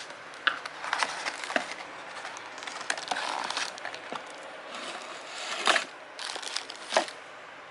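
Packaging being handled: crinkling and rustling, with several sharp clicks and knocks.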